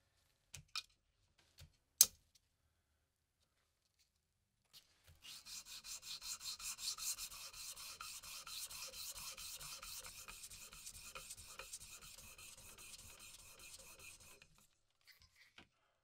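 A small steel pocket-knife part rubbed back and forth on wet sandpaper laid over a glass plate: a quick, even scraping of about four strokes a second that starts about five seconds in and stops shortly before the end. Before it come a few sharp clicks from handling the part, the loudest about two seconds in.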